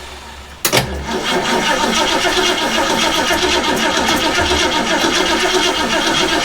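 A 1967 Ford Mustang engine being cranked by its starter after gasoline has been poured into the carburetor to get it to fire. The starter engages with a sharp click under a second in, then cranks steadily and loudly.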